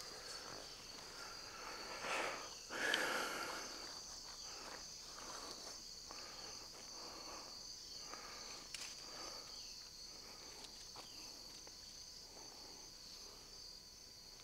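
Steady high-pitched drone of field insects, with a couple of soft rustles about two and three seconds in.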